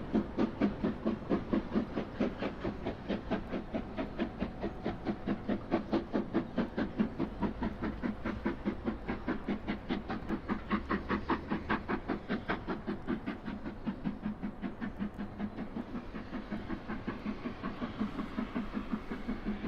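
Model steam locomotive's sound-effect chuffing steadily, with even, rapid chuffs several times a second.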